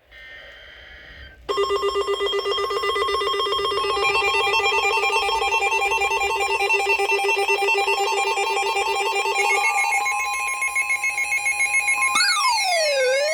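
Electronic emergency alert tones: several pulsing tones sound together from about a second and a half in, with more tones joining a few seconds later. Near the end one tone slides down and back up. The tones announce a new severe thunderstorm warning being issued.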